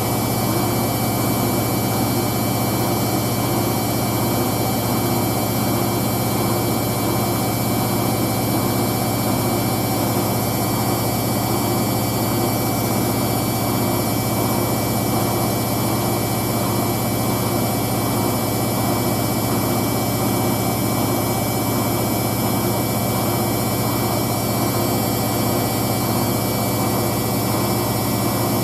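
Hoover DYN9144D3X front-loading washing machine spinning a load of towels at a steady high speed, a constant drum-and-motor hum and whine with no change in pitch, still below its 1200 rpm step.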